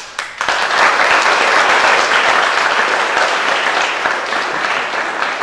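Audience applauding: a few single claps, then full, steady applause about half a second in.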